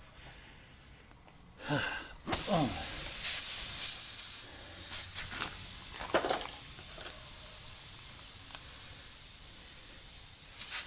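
Air hissing out of a punctured tubeless motorcycle tyre through the freshly reamed puncture hole. The hiss starts suddenly about two seconds in, loud at first, then eases slightly and carries on steadily as the tyre loses its remaining pressure.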